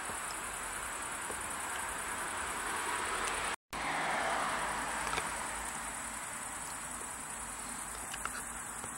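Crickets chirping steadily in a dense high trill, over a faint background hiss. The sound drops out briefly about three and a half seconds in.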